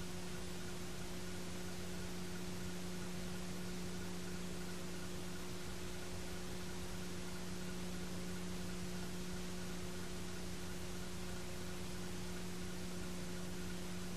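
Steady hiss with a constant low electrical hum, and no game or crowd sound standing out: the noise floor of an old analog videotape transfer.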